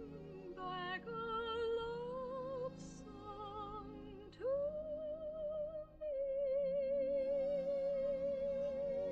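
A female soprano singing in an operatic style, holding long notes with wide vibrato. About four and a half seconds in, she slides up into a note, then holds one long note.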